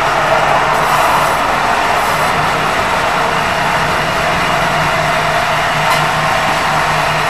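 A vehicle running steadily: a constant loud rush of noise with a low hum under it.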